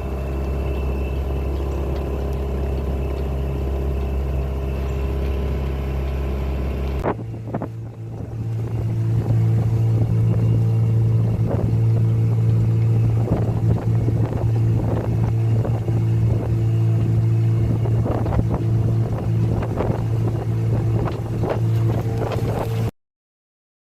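An engine running steadily. About seven seconds in the sound changes abruptly to a higher, steady engine hum with frequent rattling and clicking, then cuts off suddenly near the end.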